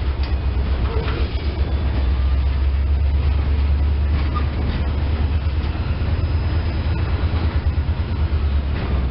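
A freight train of boxcars rolling slowly past, shoved from behind by an EMD SD40-2W diesel locomotive. The sound is a steady low rumble with the noise of wheels on rail.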